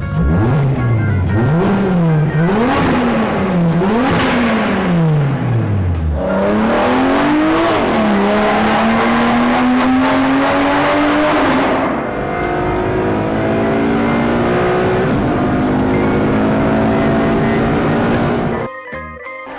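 A vehicle engine revving up and down about five times, then climbing slowly in pitch for several seconds, then holding steady, with music underneath.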